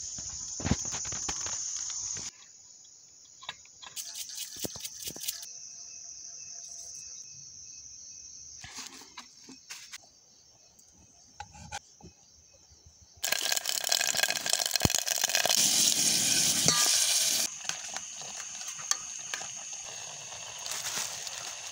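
Night insects chirring steadily at a high pitch, with scattered handling clicks and knocks. A loud spell of sizzling from the cooking pot starts abruptly and cuts off about four seconds later.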